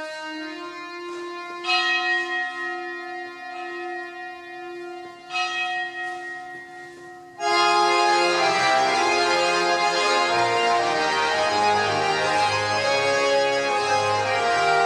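Organ music: soft held notes with two bell-like chimes that fade, then a loud full organ passage comes in about seven and a half seconds in.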